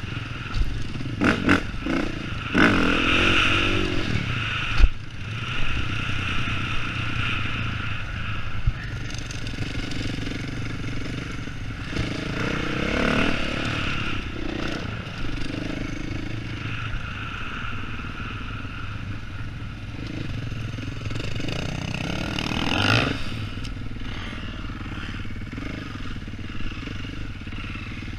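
Dirt bike engine running at low, easy throttle, heard from a helmet camera, with a few sharp knocks in the first few seconds and a brief rise in revs about three-quarters of the way through.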